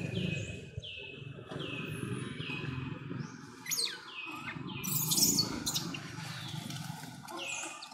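A series of short, high animal calls, each falling in pitch, repeated about once every 0.7 s over a steady low background noise, with a few brief hissing noises around four and five seconds in.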